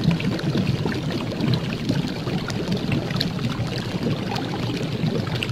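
A steady, watery bubbling noise with many small crackles running through it.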